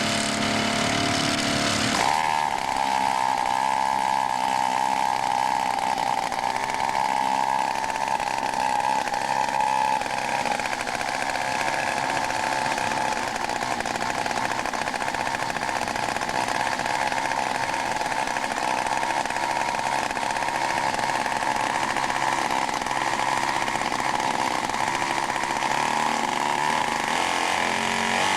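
Engine of a 105-inch quarter-scale RC F8F Bearcat model running at low throttle, then opened up to a higher, steady note about two seconds in, which it holds with slight wavering.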